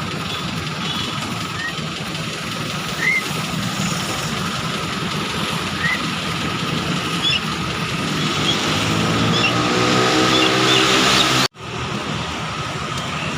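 A steady rushing background with a pet starling's short, upward-sweeping chirps every few seconds. In the last few seconds a motorcycle engine rises in pitch as it passes and speeds up, then the sound breaks off abruptly for an instant.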